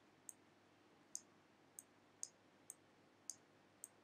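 Faint, sharp clicks, about eight in four seconds at uneven spacing: a stylus tip tapping on a drawing tablet as each handwritten stroke begins.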